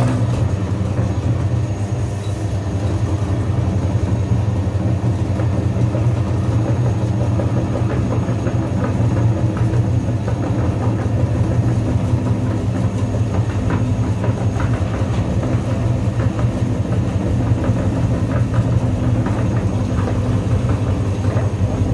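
Electric meat grinder running with a steady motor hum as its auger crushes a bar of soap, with a dense crackle of soap crumbling through the cutting plate.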